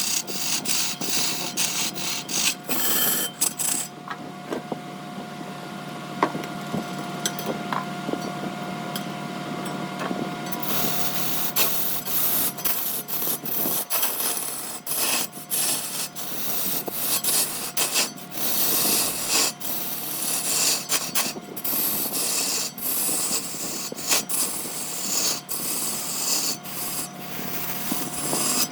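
A turning tool scraping and cutting a sapele blank spinning on a large wood lathe, in rough, irregular strokes over a steady whine from the lathe. The cutting eases to a fainter hiss about 4 s in and picks up harder again about 10 s in.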